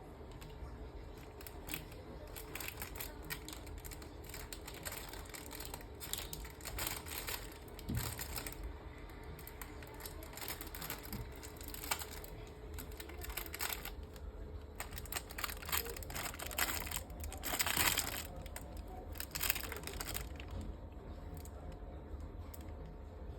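An African white-faced scops owl getting into mischief, crumpling and tearing at something crinkly in irregular bursts of rustling and clicks. The longest, loudest rustle comes about 18 seconds in.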